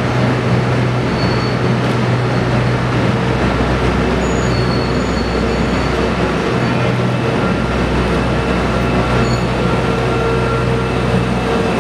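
Narrow-gauge tunnel-construction works locomotive running on rails with its wagons: a steady low hum with dense mechanical noise.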